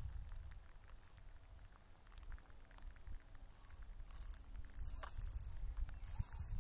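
Fishing reel's drag buzzing in short repeated bursts as a hooked pike pulls out line. Wind rumbles on the microphone, and a faint high falling chirp repeats about once a second.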